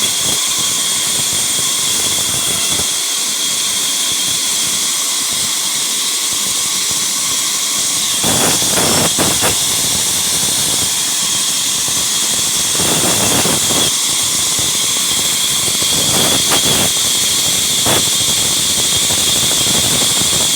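Sawmill saw running with a steady high-pitched whine and hiss. Several swells of fuller, coarser noise follow, the first about eight seconds in, as the blade cuts through the wood.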